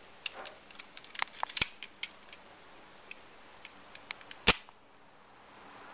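A 1911 pistol handled with a few light metallic clicks, then fired once about four and a half seconds in: a single sharp gunshot.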